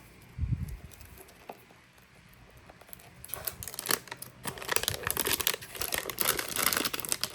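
Packaging crinkling and tearing as it is handled and opened, starting about three seconds in and growing busier, after a soft low thump near the start.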